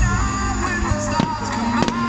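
Music with a melody and a steady low note, with a few sharp firework cracks near the end.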